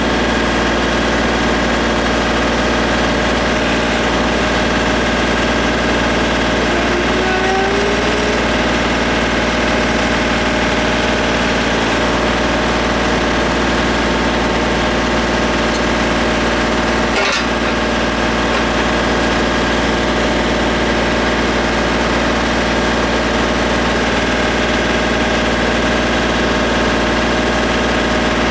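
Engine idling steadily at an even pitch, with one brief sharp click about 17 seconds in.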